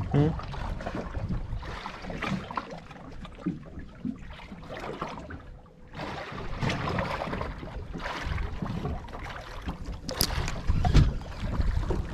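Wind on the microphone and water slapping against the hull of a small fishing boat, rising and falling in gusts, with two sharp knocks near the end.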